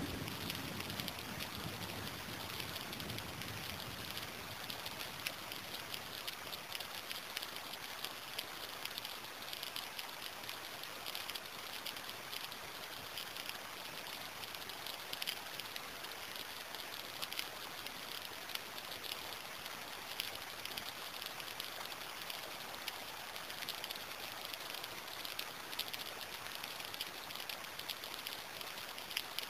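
Steady rain falling: an even hiss of many small drop hits. A low rumble dies away in the first second or two.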